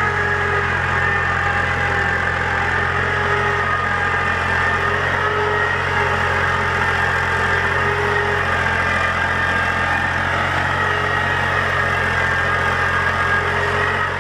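Universal 530 tractor's diesel engine running steadily under load as it pulls an 11-tine cultivator through dry soil, an even low drone with no change in pitch.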